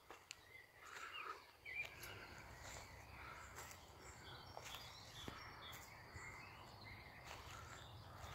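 Quiet woodland ambience with faint bird calls and a few soft ticks.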